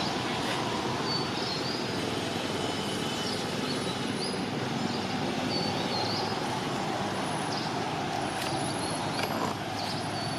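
Steady outdoor background noise, with short high rising chirps repeating every second or so and a few faint clicks.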